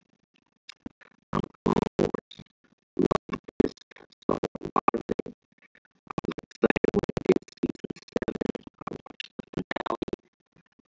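Music with record-scratch sounds, coming in short choppy bursts that stop and start abruptly.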